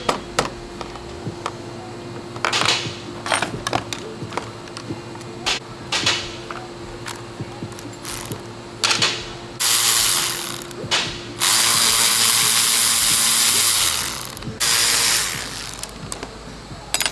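Ratchet working the nut that holds a wiper linkage arm on the wiper motor: a few scattered metal clicks, then three runs of continuous ratcheting, the longest about two and a half seconds.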